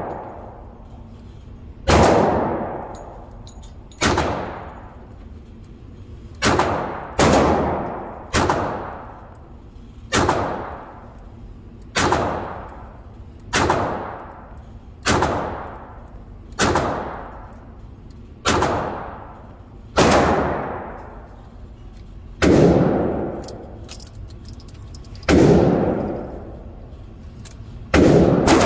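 Single gunshots, about fifteen of them one to three seconds apart, each trailing off in a long echo off the walls of an indoor range. They include the shots of a Harrington & Richardson 939 .22 LR double-action revolver.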